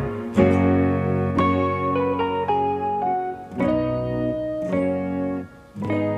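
Instrumental background music, a melody of changing held notes, with a brief break shortly before the end.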